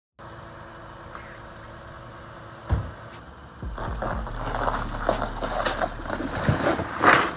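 Car engine running as the car pulls out of a garage, with a knock a few seconds in. About halfway it gets louder, a steady low drone with crackling as the tyres roll over icy ground, and a louder burst of noise near the end.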